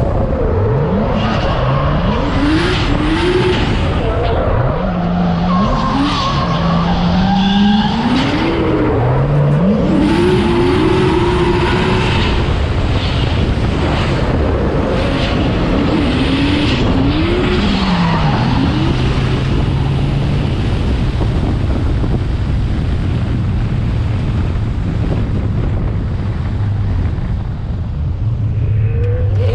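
Nissan Skyline R32's engine revving hard in repeated climbing bursts that drop away as the throttle lifts, with tyres skidding and squealing. After about twenty seconds the engine settles to a steady low note.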